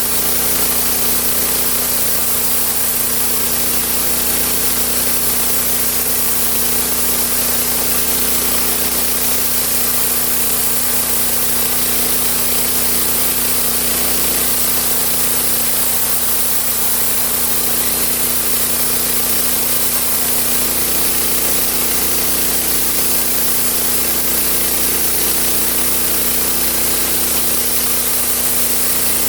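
Homemade sawmill running steadily: an even engine hum with a bright, constant hiss over it.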